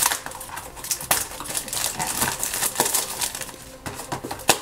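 Tight plastic wrapping crinkling and crackling in short, irregular bursts as fingers peel and tear it off a small cardboard box.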